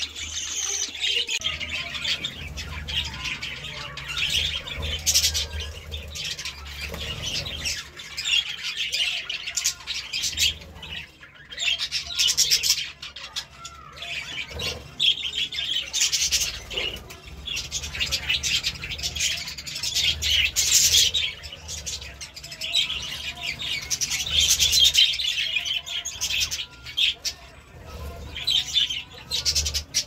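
A flock of budgerigars chattering, many chirps overlapping at once and swelling and fading every few seconds, over a low steady hum.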